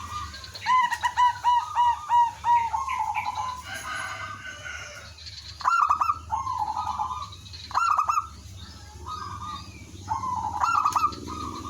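Zebra doves cooing: a quick run of about eight short arched coo notes about a second in, then further cooing phrases from several birds answering one another.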